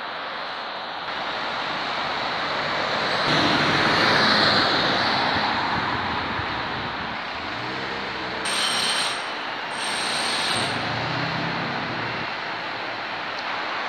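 Road traffic of cars, vans and buses passing on a busy multi-lane junction, a steady rush of tyres and engines. One vehicle swells past about four seconds in. Two short high-pitched tones sound about eight and a half and ten seconds in.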